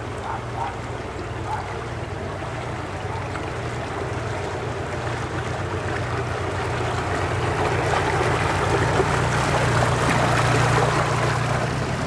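Narrowboat engine running steadily under way, a low even hum, with a rushing noise of wind and water that builds and is loudest shortly before the end.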